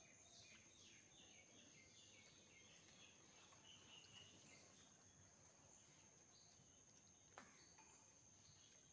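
Near silence: faint rural ambience with small birds chirping in quick series in the first half and a steady high insect drone throughout.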